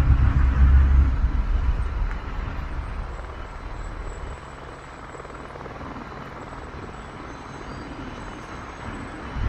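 Helicopter departing, its low rotor and engine rumble loud at first and dying away over the first four seconds or so into a faint steady hum.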